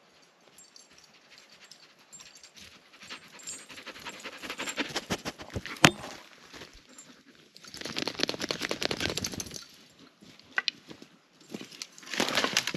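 Belgian Malinois panting close to the microphone in bouts of rapid breaths, with a sharp click about six seconds in.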